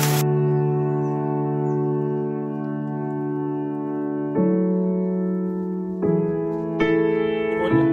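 A rain hiss cuts off suddenly right at the start. Background music follows: slow, held keyboard chords, changing more often in the second half.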